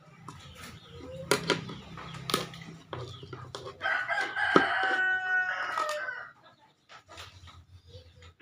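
A rooster crows once, a long call of about two seconds that starts about four seconds in, with a few sharp knocks before it.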